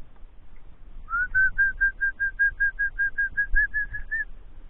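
A quick run of about sixteen short whistled notes at one steady pitch, about five a second, the first sliding up.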